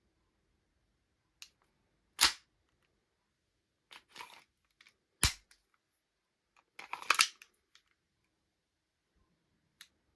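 Sharp mechanical clacks from a Western Arms M1911 gas blowback airsoft pistol being worked: single hard clacks about two and five seconds in, and a quick rattling cluster of clacks around seven seconds in, with small clicks between.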